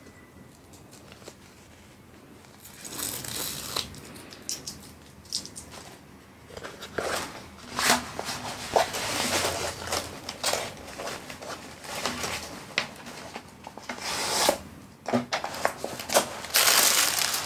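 Plastic-wrapped diamond-painting canvas rustling and crinkling as it is unrolled and pressed flat by hand. After a quiet first few seconds the rustles come in irregular bursts, loudest near the end.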